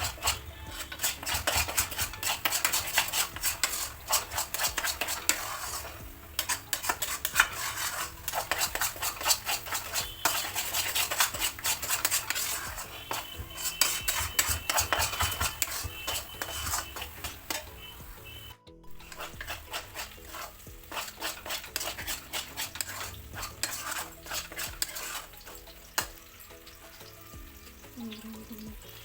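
A spatula stirring and scraping around a pan in rapid, continuous strokes while the turmeric-laddu mixture fries and sizzles in it. The sound briefly cuts out about two-thirds of the way through.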